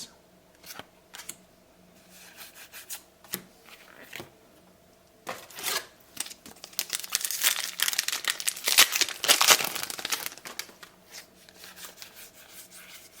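Trading card booster pack wrapper being torn open and crinkled, densest and loudest from about five seconds in to about ten seconds, with lighter scattered rustles and clicks before and after.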